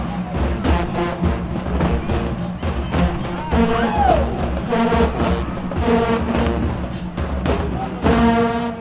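Show-style marching band playing: brass chords over a steady drumline beat, with a short pitch slide about four seconds in. It ends on a loud held chord that cuts off sharply near the end.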